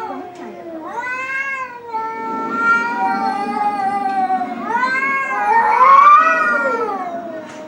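Cat yowling in long, drawn-out meows: about three calls, the last one rising and falling in pitch and the loudest.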